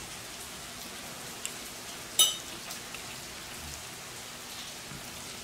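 Steady rain falling outside an open window, an even hiss. About two seconds in, a short high ringing clink.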